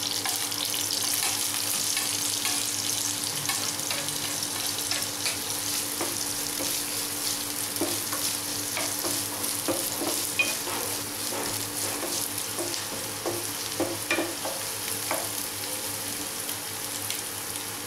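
Chopped onions and green chillies sizzling in hot oil in a nonstick kadai, with a spatula stirring and scraping them now and then in short clicks.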